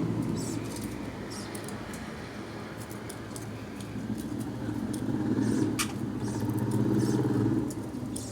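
Budgerigars chirping in short, high calls over a low, steady hum that swells louder through the second half and drops off near the end.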